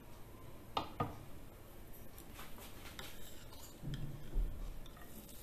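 Faint scattered clicks and ticks over a quiet background, with light handling taps near the end as a metal spoon is worked in a small ceramic bowl of chopped garlic.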